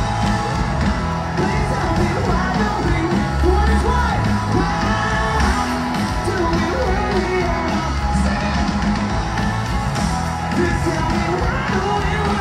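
Loud rock music with a singer's voice over a heavy, steady bass.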